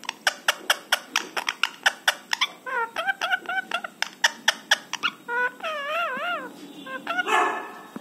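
Indian ringneck parakeet calling: a rapid run of short sharp chirps, about five a second, then wavering whining calls that rise and fall in pitch, with a louder burst near the end.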